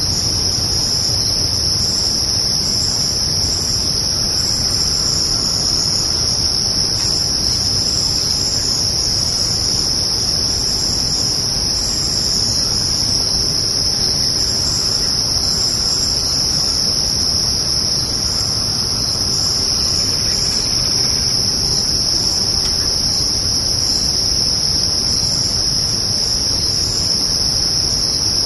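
A chorus of crickets trilling steadily through a summer night: one continuous high-pitched tone, a fainter even higher tone above it, and an uneven pulsing layer between them, over a low background rumble.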